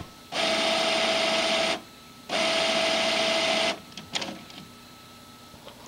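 Home printer's paper-feed motor running in two bursts of about a second and a half each, with a short pause between, as it tries to draw in a strip of toilet paper; a few clicks follow as it stops. The rollers fail to take the soft paper, and the printer registers that it is out of paper.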